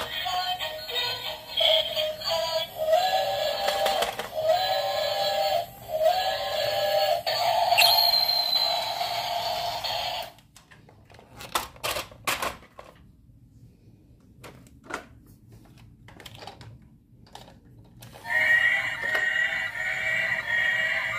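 Battery-powered toy trains playing electronic melodies: one warbling tune for the first ten seconds, then a quiet gap with a few clicks, and a second tune starting about eight seconds later.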